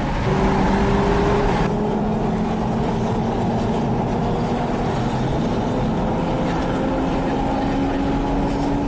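Lamborghini Gallardo Superleggera's V10 on an aftermarket LOC exhaust, pulling hard. A louder, higher rev in the first second and a half breaks off sharply, then a steady drone that climbs slowly in pitch as the car accelerates.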